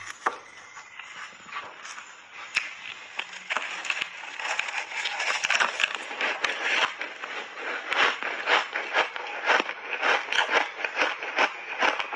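Refrozen ice chunks dusted in matcha milk powder being bitten and chewed close to a lapel microphone, a quick run of sharp crunches and crackles. The crunching is sparse at first and becomes busier and louder after a few seconds.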